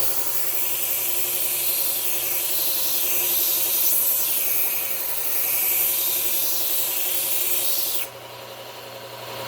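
Steel knife blade pressed against a running powered sharpener, a steady grinding hiss over the motor's hum, as the edge is ground back to remove a chip. Near the end the blade comes off and the hiss cuts off suddenly, leaving the motor running.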